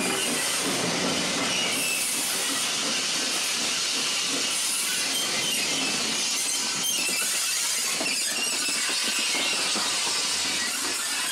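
Steam train passing close by: the coaches roll steadily over the rails amid a constant hiss of steam, and the Bagnall No.401 steam locomotive comes past near the end.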